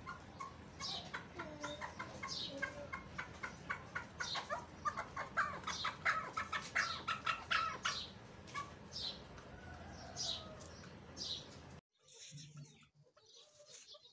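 Chukar partridge calling: a rapid rhythmic run of clucking chuck notes that quickens and grows louder, with sharp higher call notes in between. Near the end the sound cuts off abruptly to a much quieter passage.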